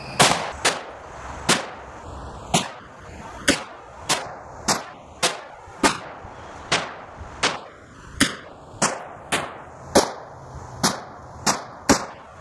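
Head Down Provectus AR-15 pistol with a 7.5-inch barrel firing steady semi-automatic single shots, about eighteen sharp cracks roughly two-thirds of a second apart.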